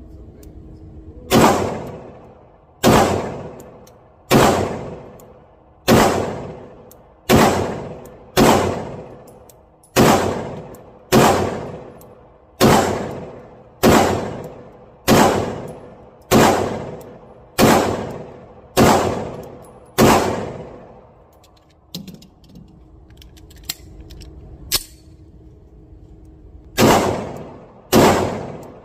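Girsan 9mm pistol firing slow, steady single shots, about one every second and a half, each echoing in an indoor range. After fifteen shots there is a pause of several seconds with a faint click, then two more shots near the end.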